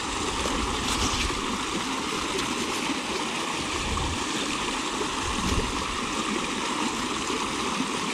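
Steady rush of flowing river water, with a few soft low bumps.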